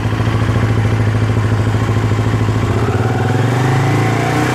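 Suzuki motorcycle engine, just started, running steadily and then revved up about three seconds in and held at a higher speed. It is being held near 5000 rpm so the stator's AC output can be measured.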